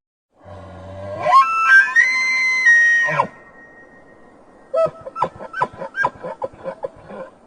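Bull elk bugling: a low growl that rises into a high, whistling note held for about two seconds and then drops away. A few seconds later comes a quick run of about a dozen short grunting chuckles.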